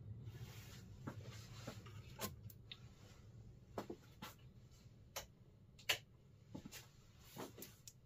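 Irregular sharp clicks and light taps from handling a small aluminium flashlight, about a dozen spread unevenly, the loudest about six seconds in, over a faint low hum.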